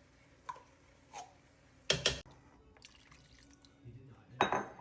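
Liquid dripping and plopping: two short plops that fall in pitch in the first second and a half. Two sharp knocks follow about two seconds in, and a louder, noisy clatter comes near the end.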